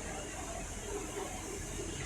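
Railway station platform ambience: a steady low rumble and hiss with faint distant voices.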